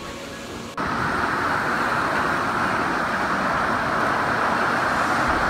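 Rushing whitewater of a water-park river rapid as an inner tube rides down through it, a loud, steady rush that starts abruptly under a second in.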